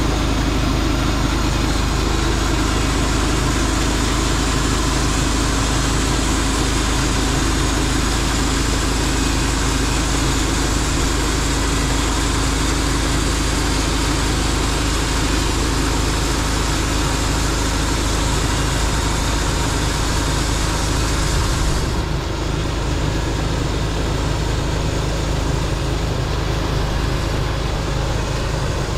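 Norwood LumberPro HD36 V2 portable bandsaw mill running, its engine going steadily while the band blade cuts through a log with a high hissing whine. About three-quarters of the way through, the cutting noise drops away suddenly as the blade leaves the cut, and the engine keeps running.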